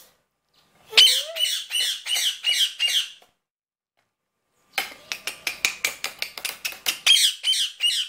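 Indian ringneck parakeet squawking: a run of rapid harsh, shrill calls, a pause of about a second and a half, then another fast run of squawks, several a second.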